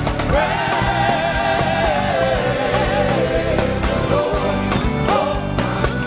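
Gospel praise-and-worship music: a singer holds long, wavering notes over steady band accompaniment.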